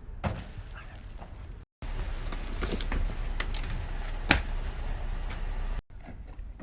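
Low outdoor rumble with several sharp knocks and scuffs, the loudest about four seconds in. It is cut off abruptly twice, near two seconds in and near six seconds in.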